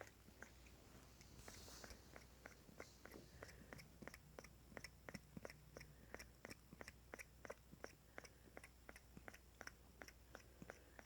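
Sleeping pitbull puppy making faint, rapid chewing clicks with its mouth while dreaming, about three or four a second and slightly irregular.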